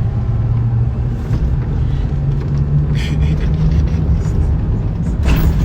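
Truck running: a steady low rumble.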